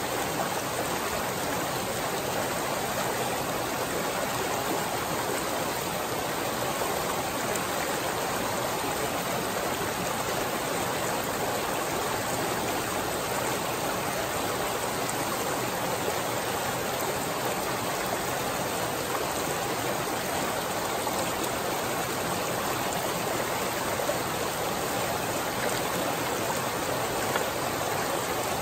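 A small rocky mountain stream running over little cascades: a steady, even rush of water. Near the end, a wading boot splashes into the water.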